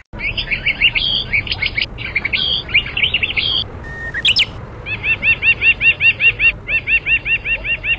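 Bird calls: quick squeaky chirps for the first few seconds, a single rising call near the middle, then a fast run of repeated arched notes, about seven a second, over a steady low noise.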